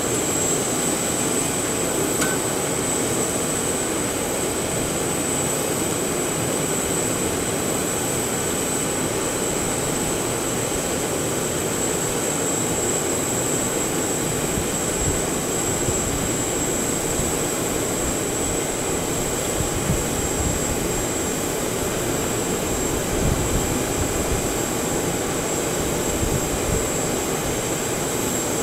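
A parked Boeing 737 airliner's auxiliary power unit running: a steady jet rush with a constant high-pitched whistle.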